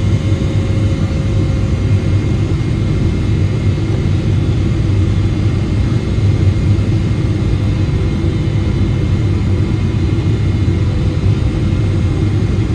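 Steady cabin noise of a Boeing 777-300ER descending on approach, heard from a window seat over the wing: its GE90-115B jet engines and the airflow make an even low rumble, with a few faint steady tones above it.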